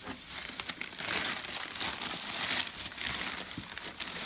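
Crinkling and rustling of wrapping material being handled, an uneven run of small crackles throughout.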